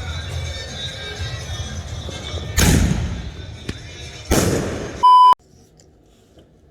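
Music with a steady beat in the background, then two loud fireworks bangs about a second and a half apart, each dying away over about a second. A short electronic beep follows, and the sound cuts to near quiet.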